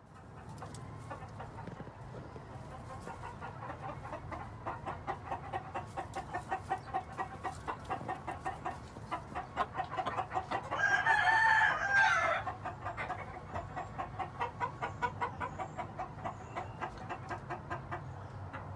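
Lonnie Harper Mule Train grey gamecock crowing once, about eleven seconds in, the loudest sound. Before and after the crow comes a fast run of short clucks, several a second.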